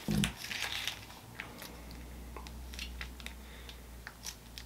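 Crinkling and small crackles of a plastic sauce packet being squeezed out over a foil-wrapped gyro, with a short louder rustle and knock at the start.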